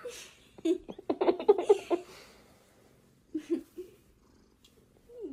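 House cat purring in short, loud, rapid pulsing bouts; the longest runs for about a second, starting a little after the start, and two shorter rumbles come near the middle and at the end.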